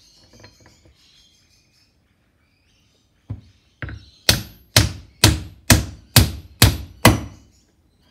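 Hammer blows on a timber block, driving the front drive output into an aluminium transfer case: two light taps, then seven firm strikes at about two a second.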